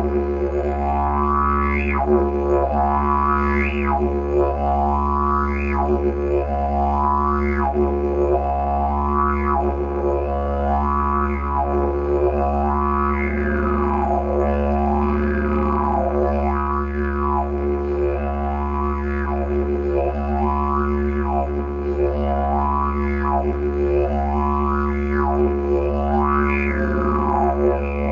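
Bamboo didgeridoo playing a continuous low drone without a break for breath. About every two seconds the player's changing mouth shape sweeps a bright overtone up and back down, giving a repeating wah-like pattern over the steady drone.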